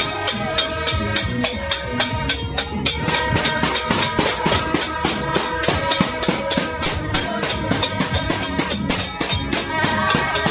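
Stainless-steel basins and pans banged in a fast, even beat, about four to five strikes a second, with a plastic party horn blowing held tones.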